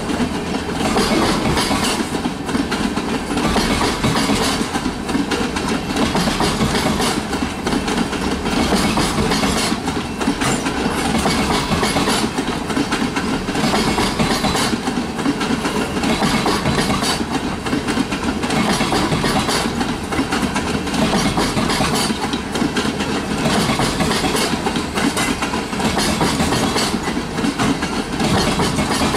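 Freight train of oil tank cars rolling past: a steady rumble of steel wheels on rail, with regular clicks as the wheels pass over the rail joints.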